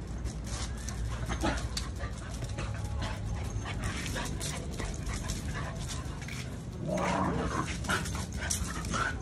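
Two dogs scuffling and wrestling on concrete: scrabbling paws and body scrapes, with a few short dog vocalizations. The loudest is a stretch of them about seven seconds in.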